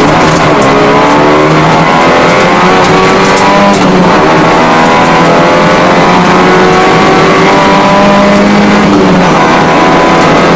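Rally car engine heard from inside the cabin under hard acceleration. The pitch climbs steadily through the gears, with a shift about four seconds in and another near the end. Sharp ticks sound over the first few seconds.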